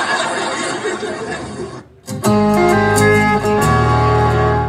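A roomful of voices for about two seconds, then a sudden cut and music with held, sustained chords over a low bass that shifts to a deeper note about three and a half seconds in.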